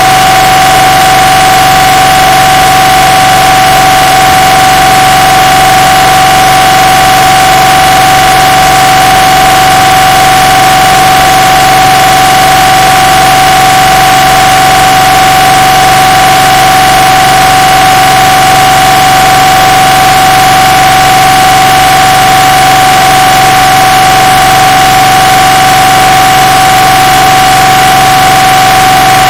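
MRI scanner's gradient coils sounding a steady, unchanging drone: one strong tone with fainter overtones over a heavy hiss. It is boosted until distorted and very loud.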